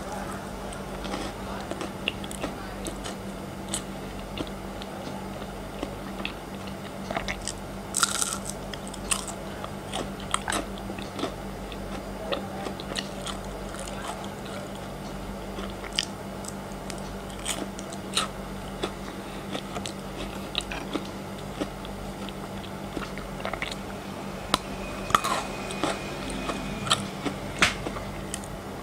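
Close-miked chewing of frozen chocolate: moist chewing with sharp crunches now and then, thickest about eight seconds in and again near the end, over a steady low hum.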